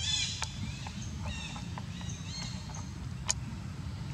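Macaques calling: a short, high squealing call at the very start, then a string of brief high chirps in the middle. A sharp click sounds about three seconds in, over a steady low rumble.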